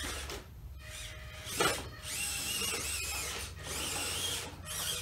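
EAZY RC Arizona 1/18-scale mini RC crawler's electric motor and gears whining in short throttle bursts as it crawls over the rock section. There are two longer runs of about a second each in the second half, and a sharp knock about a second and a half in.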